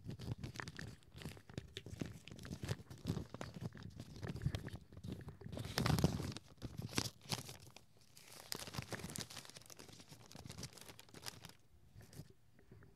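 A paper envelope being fumbled with and torn open by hand: a long run of irregular crinkling and ripping, loudest about six seconds in.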